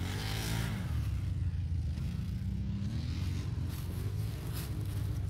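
Quad ATV engines running off-road, revving up briefly about half a second in and then holding a steady, moderate-level run.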